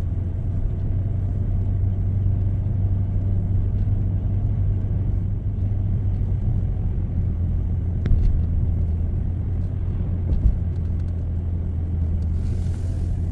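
Steady low rumble of a moving car, engine and tyre noise, heard from inside the cabin, with a couple of small knocks from bumps in the road.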